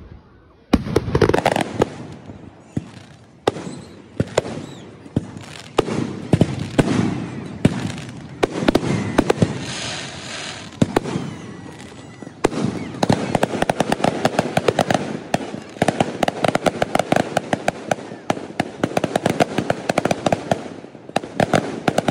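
Fireworks going off: scattered loud bangs and pops at first, then from about halfway a dense, rapid crackling that runs on with sharper bangs among it.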